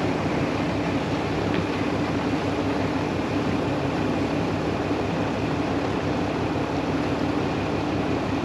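Steady rumble of a vehicle driving, engine and tyre noise running evenly with a low hum and no sharp events.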